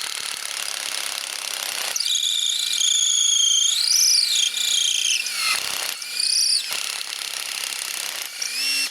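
Cordless drill spinning a broken screwdriver bit into wood: a rough grinding for the first couple of seconds, then a steady motor whine whose pitch rises and falls as the load changes. It dips briefly about halfway through and cuts off suddenly at the end.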